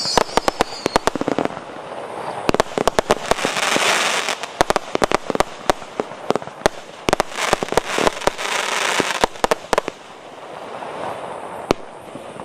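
JF C25 196 firework cake firing in rapid volleys: quick sharp bangs of bursting shells mixed with crackling. The shots thin out about ten seconds in, leaving a last single bang near the end, as the cake finishes.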